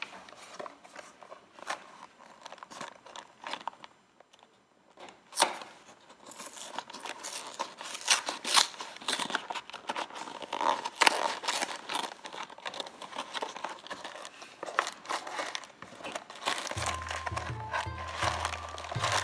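Small toy packaging being torn open and crinkled by hand: a long run of irregular crackling rustles and tears. Background music with a steady bass beat comes in near the end.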